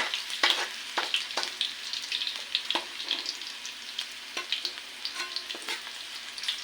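Garlic frying in hot cooking oil in a pan: a steady sizzle with irregular sharp pops throughout, the garlic cooking toward golden brown.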